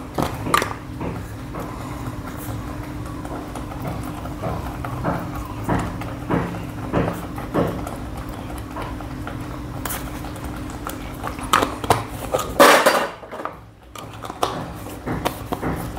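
Wooden spatula stirring thick spinach gravy in a stainless-steel kadhai, with irregular scrapes and knocks against the pan and one louder scrape near the end, over a steady low hum.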